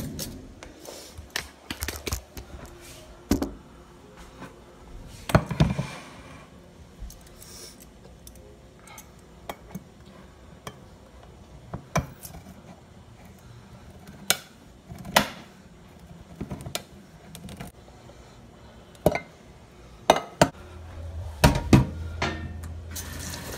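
Irregular metallic clicks and clinks of kitchen utensils: a cutlery drawer is rummaged, then a hand-held crank can opener is turned around a tin can of black beans. A few clanks of a metal pot follow near the end.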